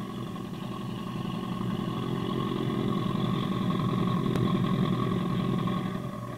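Mercury Merc 350 outboard motor running steadily, growing louder over the first few seconds and easing off briefly near the end.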